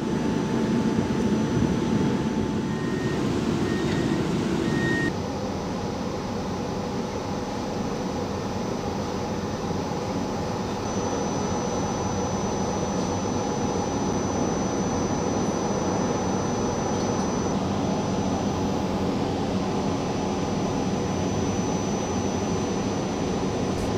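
Steady running noise of a CAF Urbos 3 tram heard from inside, with faint steady electrical whines over it. The sound changes abruptly about five seconds in, then carries on evenly.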